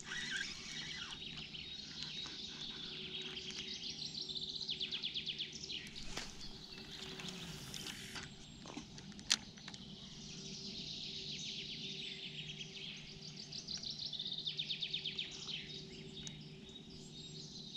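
Songbirds singing in repeated quick trilled phrases, over a faint steady low hum, with a brief rushing noise about six seconds in.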